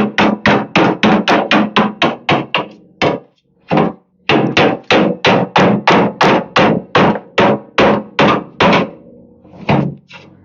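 Rapid, even hammer blows, about four a second, on the bent sheet-metal hood of a Bolens garden tractor as it is being straightened and shaped. The blows pause briefly a little after three seconds and again near nine seconds.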